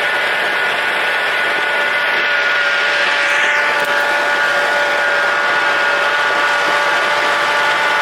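A vehicle engine running steadily, with a constant whine over a steady rumble and no change in speed.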